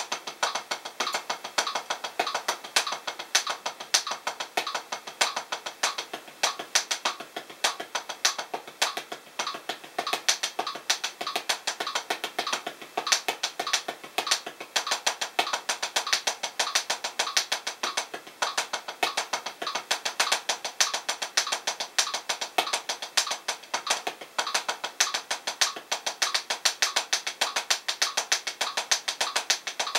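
Los Cabos 7A hickory drumsticks tapping a Drumeo P4 rubber practice pad in a steady single paradiddle, sixteenth notes at 100 BPM, about seven strokes a second.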